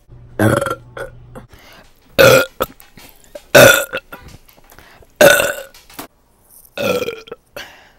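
A woman burping loudly, five separate burps about a second and a half apart.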